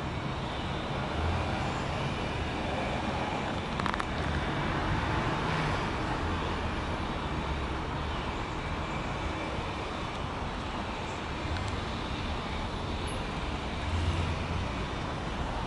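Steady outdoor background noise with low, uneven rumbling, like distant road traffic, and a brief click about four seconds in.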